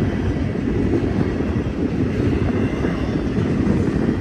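Freight train cars rolling past: a steady, loud rumble of wheels on rail.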